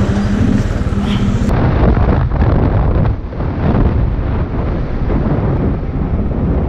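Royal Enfield Thunderbird 500 single-cylinder engine running as the motorcycle is ridden, with wind buffeting the microphone.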